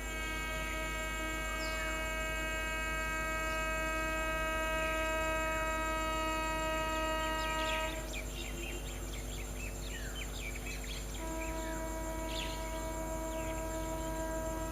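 Steady electrical hum made of several even tones, which cuts out about eight seconds in and returns some three seconds later, with birds chirping now and then.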